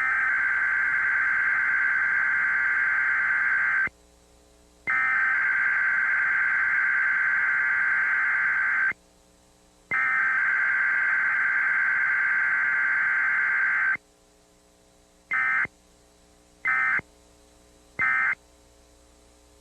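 Emergency Alert System SAME data tones: three long burst headers of about four seconds each, a second apart, followed by three short end-of-message bursts.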